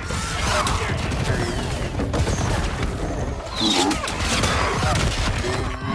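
Film battle sound mix: a dense din of clashing weapons and repeated impacts, with shouting and cries among them, one louder cry about three and a half seconds in.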